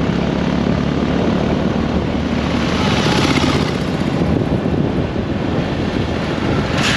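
Honda CB150 motorcycle running steadily at highway speed, its engine drone mixed with heavy wind rush over the microphone.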